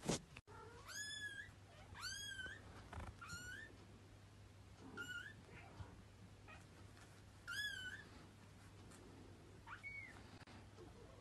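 Kitten mewing: about six short, high-pitched mews spaced one to two and a half seconds apart, each rising and then dipping in pitch. A sharp click at the very start is the loudest sound.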